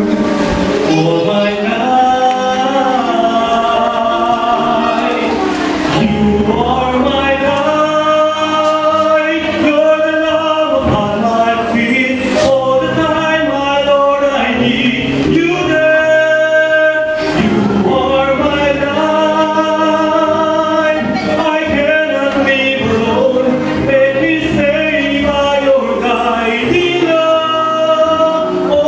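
A man singing a gospel worship song into a handheld microphone, with music accompaniment under his voice.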